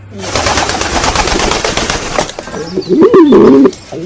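A pigeon's wings flapping in a rapid clatter of claps for about two seconds, then a pigeon cooing once, a low bending call, near the end.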